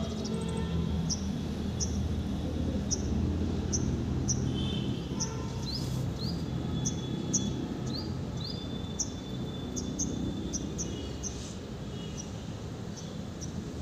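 Small birds chirping: short high chirps, some sliding upward, repeated irregularly about once or twice a second, over a steady low rumble.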